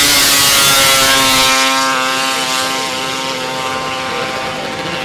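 Racing snowmobiles at full throttle climbing the hill: a high, steady engine drone with a hiss of track and snow spray over it, fading slowly as the sleds pull away.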